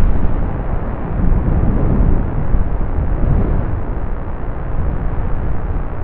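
Storm-force wind buffeting the microphone: a loud, deep rumble that swells and eases with the gusts.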